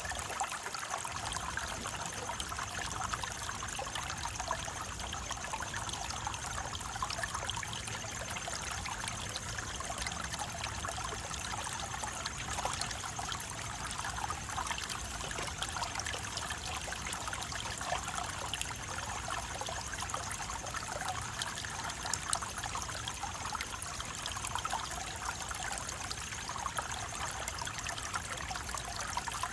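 Running water trickling and babbling steadily, like a small stream, with a constant splashing hiss.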